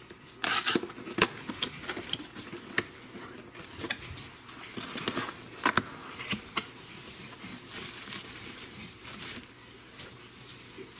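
Cardboard box and its packaging being opened and handled by hand: an irregular run of clicks, taps and rustles.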